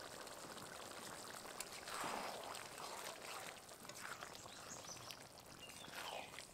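Spicy curry gravy with fried stingray pieces simmering in a pan, with a faint crackling bubble. Louder rushing swells come about two seconds in and again near the end.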